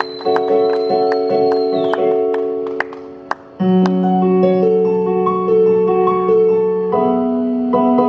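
Casio electric keyboard on a piano sound, playing slow sustained chords. The chords die away, then a new, fuller chord and a gentle melody come in about three and a half seconds in. A high held note sounds over the first two seconds.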